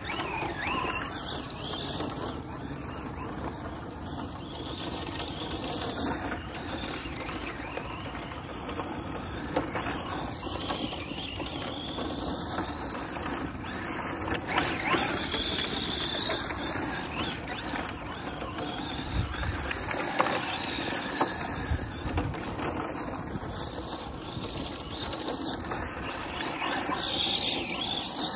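ARRMA Mojave 4S RC desert truck's brushless electric motor whining up and down with the throttle as it slides on loose dirt, its tyres spinning and spraying dirt, with a few sharp knocks along the way.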